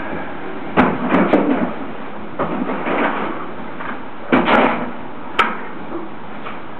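A series of irregular sharp knocks and clunks, in small clusters about a second in, around three seconds in, and again a little after four and five seconds, over a steady background hiss. No sustained bell tone rings out.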